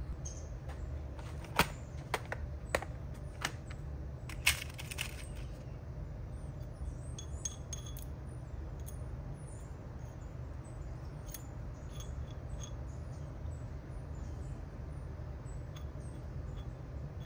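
Small sharp metallic clinks, a handful in the first five seconds and fainter ticks after, over a steady low hum: steel cotter pins handled in a plastic assortment tray and one fitted through the castle nut on a bolt.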